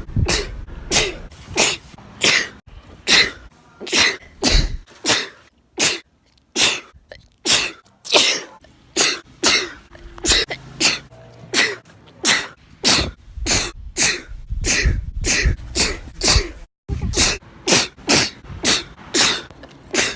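A woman's sneezes, one after another in quick succession, about two a second.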